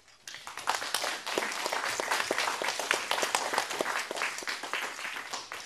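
Audience applauding, starting about a third of a second in and dying away near the end.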